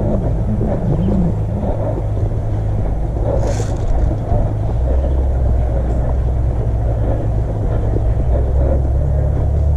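Steady low drone like a running engine, its pitch settling lower about halfway through, with a short hiss about three and a half seconds in.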